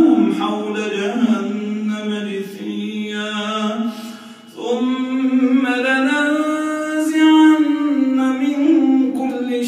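A man's melodic Quran recitation, chanted in long held notes through a microphone, with a short breath pause about four seconds in.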